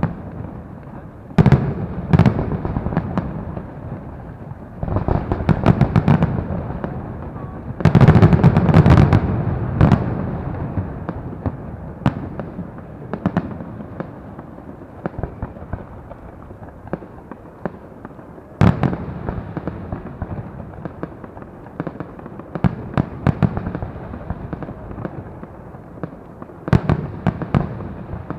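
Fireworks display: a continuous rumble of distant bangs with rapid crackling volleys, heaviest in several bursts over the first ten seconds, one sharp loud bang about two-thirds through, and another crackling cluster near the end.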